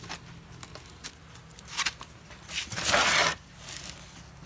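A few light clicks of handling, then a loud crinkling rustle of packing material lasting just under a second, about two and a half seconds in.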